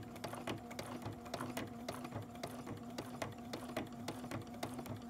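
Domestic sewing machine stitching free-motion embroidery with an embroidery foot: a steady motor hum with rapid, even needle ticking as the fabric is guided by hand.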